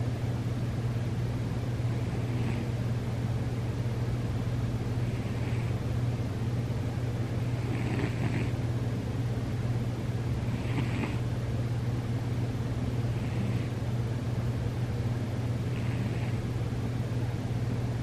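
Sleeping domestic cat snoring softly: a faint whistling snore with each breath, about every two and a half to three seconds, over a steady low hum.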